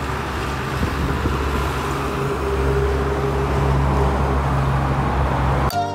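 Road traffic: a vehicle engine's steady low hum over road noise. Music with bell-like tones cuts in suddenly near the end.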